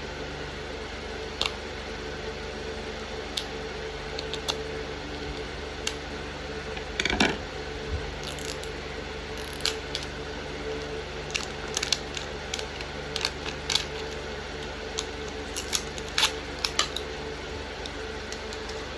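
Toy packaging being handled and opened: scattered sharp clicks and short plastic rustles, the loudest a rustle about seven seconds in, over a steady low hum.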